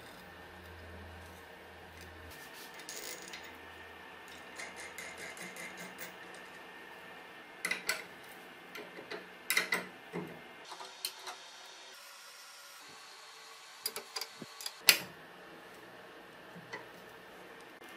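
Small metal clicks and clinks of a steel bolt, washers and nut being fitted through wood and tightened with a ratcheting wrench. A run of quick light ticks comes a few seconds in, then scattered sharper clinks, the loudest one about 15 seconds in.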